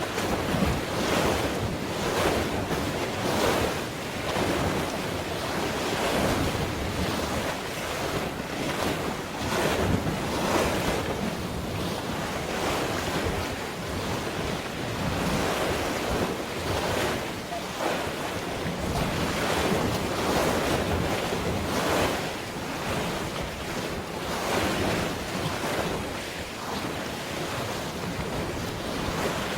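Sea waves washing and splashing in repeated swells, with wind buffeting the microphone.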